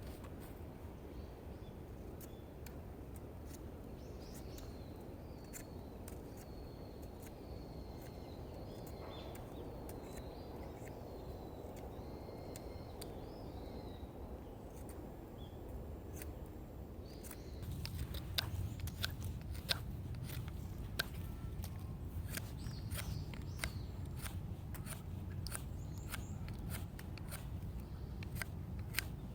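Outdoor ambience with small birds chirping in the first half. About two-thirds of the way in, it gives way to a louder low rumble with many scattered sharp clicks and crackles.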